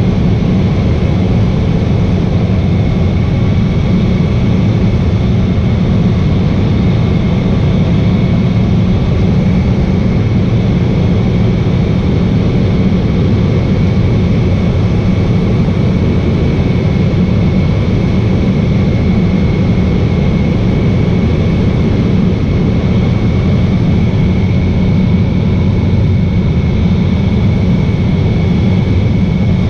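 A high-wing seaplane's engine and propeller running steadily in level flight, a loud, unchanging drone.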